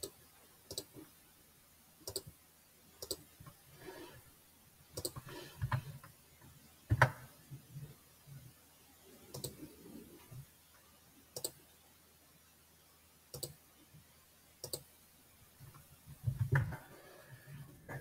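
Computer mouse clicks with some keyboard keystrokes: sharp, irregularly spaced clicks, about one every second.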